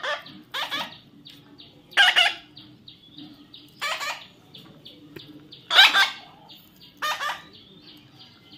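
Baby parrot giving harsh, raspy food-begging calls: six short squawks, spaced one to two seconds apart. A faint, regularly pulsing high chirring runs underneath.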